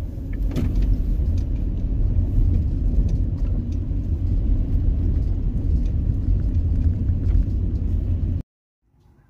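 Car driving slowly along a gravel track, heard from inside the cabin: a steady low rumble of engine and tyres, with scattered small clicks of stones under the tyres. It cuts off abruptly near the end.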